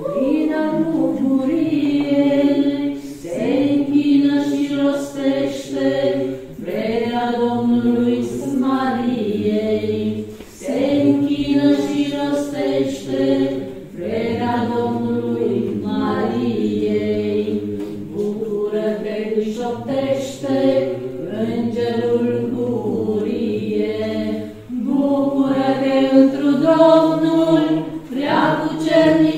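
Choir singing a Romanian Orthodox pricesnă unaccompanied, in long held phrases with short breaks between them.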